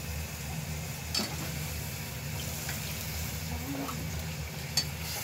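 Metal spatula stirring beef stew in a nonstick pot, scraping through the meat and broth as it cooks, with two sharper knocks of the spatula against the pot about a second in and near the end. A steady low hum runs underneath.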